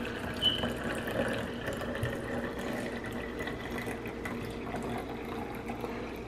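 Brewed tea poured in a steady stream from a small stainless steel saucepan into a plastic blender bottle, the liquid splashing as the bottle fills.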